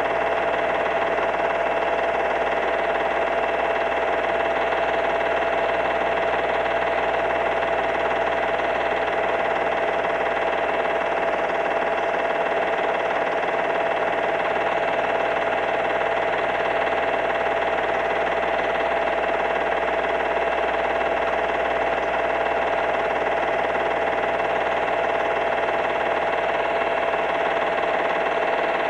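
Steady, unchanging whirring hum with a constant high tone running through it, typical of a film projector running while old home movies are played back and re-recorded.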